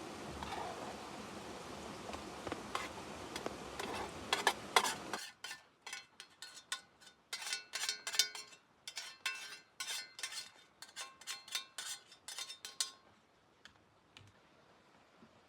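Metal utensils clinking and tapping against a pot in a quick, irregular string of sharp clicks. This follows a steady hiss with a few clicks that cuts off suddenly about five seconds in.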